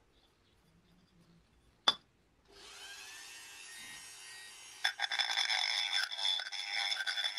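A sharp click, then a handheld rotary tool spins up and runs with a steady whine. About five seconds in, its small ball burr bites into the metal gear plate and grinds down a rivet head, and the sound turns louder and rougher.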